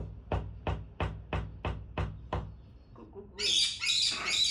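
A pet parrot knocking on a door, about eight quick knocks at roughly three a second, then a parrot's harsh squawking from about three seconds in.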